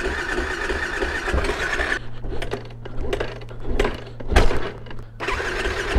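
2006 Yamaha WR450F four-stroke single being started with difficulty. It begins with about two seconds of steady mechanical whirring. Then comes a steady low hum broken by several sharp knocks and clunks, without the engine settling into a run.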